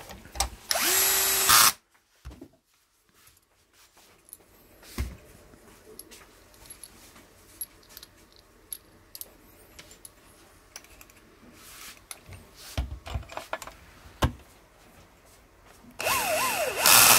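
Cordless drill-driver running in two short bursts, about a second in and again near the end, driving screws into a wooden rifle stock. Quiet clicks and knocks of parts being handled come in between.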